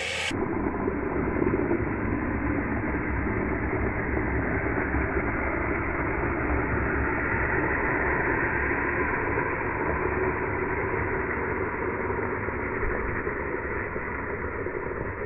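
Steady, rough hiss of a longboard's urethane wheels and a slide glove sliding sideways across asphalt in one long, drawn-out slide.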